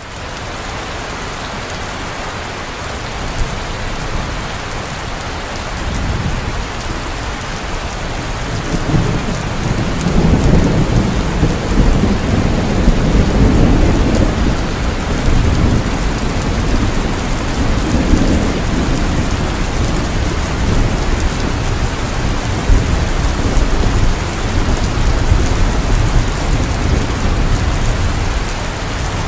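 Heavy rain falling steadily, with low rolling thunder that comes in about six seconds in and rumbles on, swelling several times.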